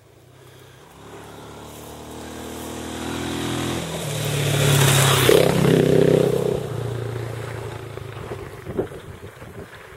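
Enduro motorcycle engine approaching, getting steadily louder, passing close about five seconds in, then fading as it rides away; the engine note changes abruptly about four seconds in.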